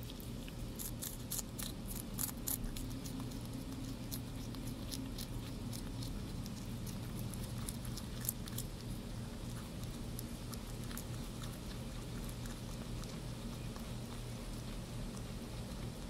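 English Lop rabbit chewing and crunching crisp lettuce with quick, sharp clicks. The clicks are densest in the first few seconds and thin out after about nine seconds, over a steady low hum.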